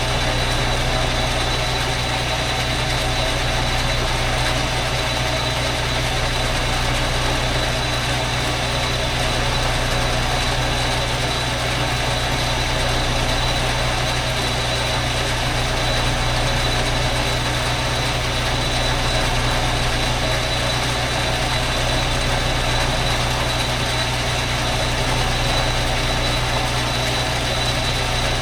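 Metal lathe running steadily while boring out a motorcycle cylinder, the machine's hum even throughout with a thin high whine over it.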